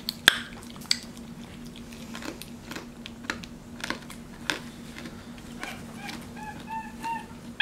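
Scattered wet mouth clicks and smacks from licking a hard lollipop, then near the end a quick run of about five short, high chirps from a baby capuchin monkey.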